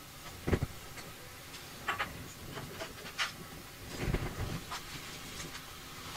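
Scattered light clicks and knocks of a screwdriver and hands working in a 3D printer's electronics bay as the main board's last screws come out and the board is lifted free. There is a duller thump about half a second in and a cluster of handling knocks around four seconds in.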